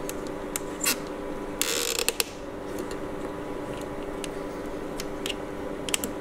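Hex key turning screws in 3D-printed expanding clamp mounts, giving scattered small metal clicks and ticks as the key seats and turns in the screw heads, with a short scraping rasp about a second and a half in. A steady mechanical hum runs underneath.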